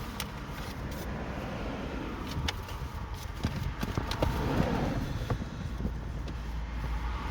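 Steady low rumble of a car, heard from inside the cabin, with a few light clicks and knocks from something being handled.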